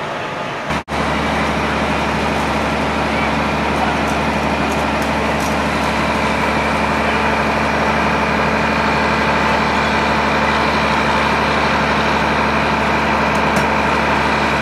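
Large emergency vehicle's engine idling: an even low drone with a few steady tones over it. It cuts out for an instant about a second in, then runs on unchanged.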